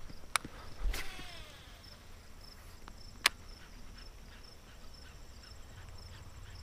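Handling knocks and clicks of fishing gear. One click about a second in is followed by a brief falling whir, and a single sharp click comes just past the middle. A faint, evenly pulsing high chirr runs underneath.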